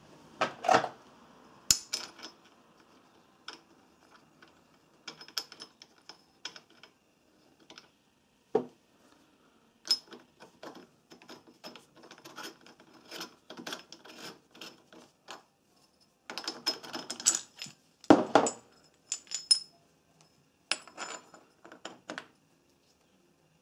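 Irregular metallic clicks, clinks and taps of a hand tool and metal parts against the opened aluminium clutch-side case of a 156FMI motorcycle engine, during work on its centrifugal oil filter. Louder knocks come about a second in and again near eighteen seconds in.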